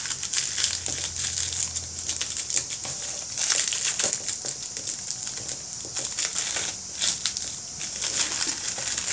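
Paper wrapper crinkling and rustling as it is folded and creased by hand around a bar of soap, a steady run of many small crackles that thickens for a few seconds midway.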